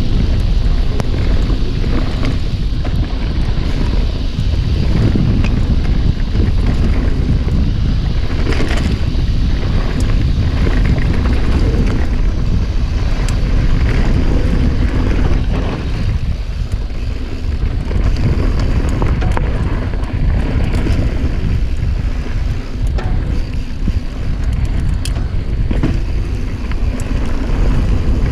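Wind buffeting the microphone over the rumble of mountain bike tyres rolling fast on a dirt trail, with scattered sharp clicks and rattles from the bike as it hits bumps.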